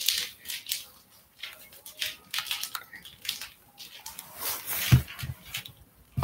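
Irregular rustling and scraping, like fabric rubbing against a covered phone microphone, with a couple of low thumps about five seconds in.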